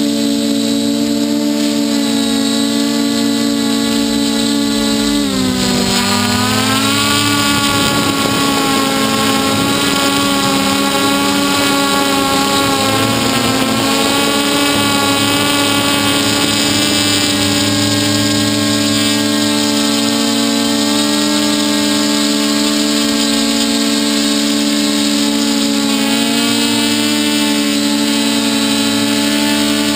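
Hexacopter drone's electric motors and propellers buzzing steadily in flight, heard from the onboard camera. The pitch dips and then climbs back about five to seven seconds in as the motors change speed.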